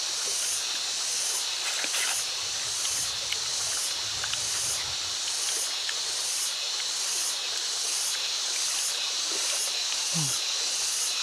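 Insects chirring in a steady high hiss that pulses evenly, about one and a half times a second.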